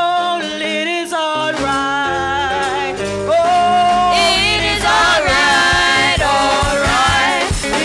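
Gospel praise singing: girls' voices drawing out long sung notes over a live church band. Bass comes in about a second and a half in, and drum-kit hits join a few seconds later.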